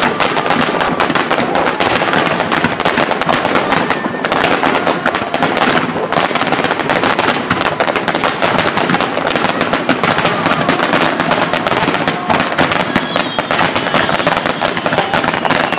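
Fireworks display at full barrage: aerial shells bursting one on top of another in a dense, continuous run of bangs and crackling, with no gap.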